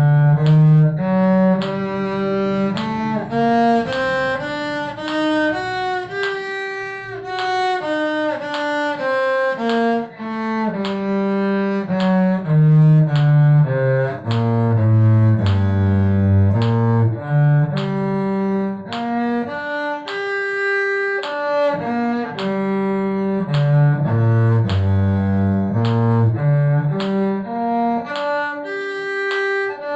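Cello playing a two-octave G harmonic minor scale with separate bow strokes, climbing from low G and coming back down, then going up and down again.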